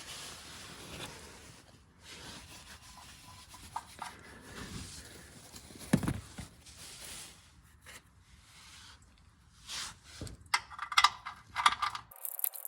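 Hands turning a new spin-on oil filter onto its mount by hand, with rubbing and scraping. There is a single knock about six seconds in and a flurry of clicks and knocks near the end.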